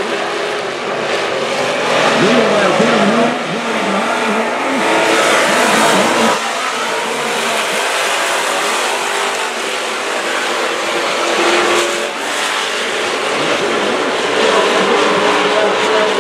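A pack of dirt-track hobby stock race cars running at speed around the oval, their engine notes rising and falling as they power through the turns and pass by.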